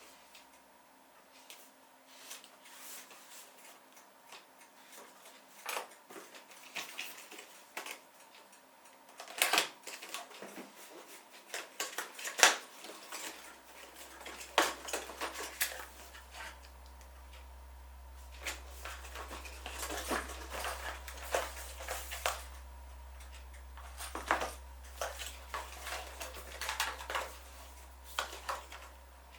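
Irregular clicks, knocks and clatter of small hard parts being handled, set down and fitted by hand, the loudest knocks a little under halfway through. A steady low hum comes in about halfway and carries on under the handling.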